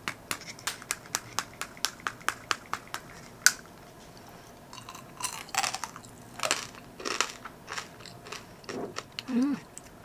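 Eating tanghulu: a run of quick light clicks with one sharp click about three and a half seconds in, then crunching and chewing as teeth break the hard sugar-candy shell of candied blueberries.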